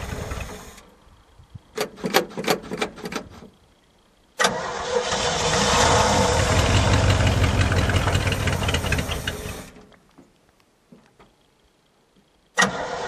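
The 283 small-block Chevrolet V8 of an old dump truck struggles through a cold start. It sputters with a string of sharp pops and goes quiet, then catches suddenly and runs for about five seconds before dying away. Near the end it starts up again abruptly. The engine is worn out and running on two-year-old gas.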